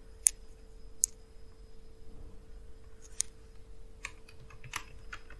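Computer keyboard clicking: three sharp, separate key presses, then a quick run of keystrokes about four seconds in.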